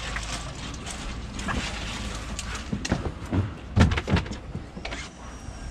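Scattered knocks, clicks and thuds of fish being handled between a plastic fish tote and a boat's in-deck fish box, with a few louder knocks about four seconds in.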